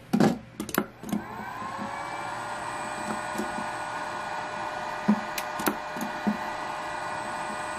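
A push button clicks, then a three-phase induction motor run by a PowerFlex 525 variable frequency drive starts: its whine rises for about a second as the drive ramps it up, then settles into a steady electric hum with a faint hiss. A few more sharp button clicks come around the middle.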